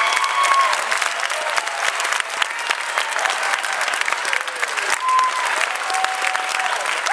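Theatre audience applauding steadily, a dense crackle of many hands clapping at an opera curtain call. A few held calls from voices rise above the clapping at the start and again about five to six seconds in.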